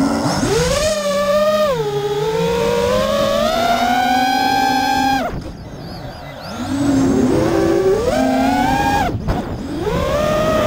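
FPV quadcopter's four brushless motors (Emax RS2205 2300KV, tri-blade props) spinning up suddenly at takeoff, a loud whine whose pitch rises and falls with the throttle. About five seconds in the throttle is cut and the whine sinks and fades, then it punches back up, with a brief cut-out near the end.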